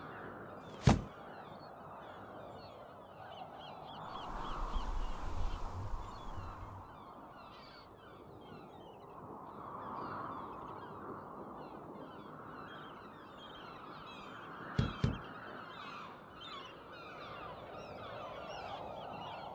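Birds calling throughout over a steady outdoor background, with a sharp knock about a second in, the loudest sound, and a quick double knock near fifteen seconds in. A low rumble with hiss swells between about four and seven seconds in.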